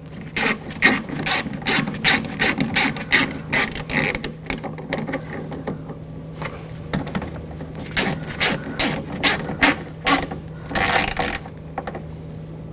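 Hand ratchet clicking in rapid runs as screws are run down tight: one run of clicking for the first few seconds, a pause, then a second run about halfway through.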